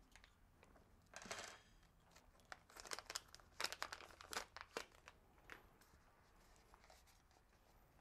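Faint, intermittent crinkling of a small plastic parts bag and light clicks as heat-shrink tubing and metal butt crimp connectors are taken out of a crimp kit and set down on a wooden bench.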